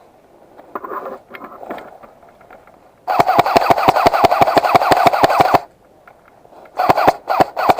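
Airsoft electric gun firing on full auto: after a few soft handling sounds, one long burst of about ten rapid shots a second lasting two and a half seconds, then more bursts starting near the end.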